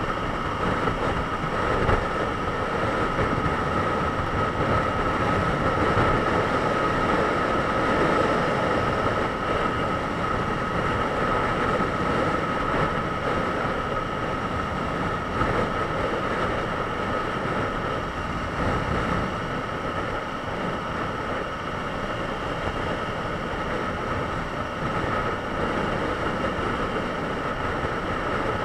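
Honda CBR954RR's inline-four engine cruising steadily at motorway speed, about 105 to 113 km/h, buried in heavy wind and road noise on a camera mounted on the motorcycle. The level holds even, with no gear changes or revving.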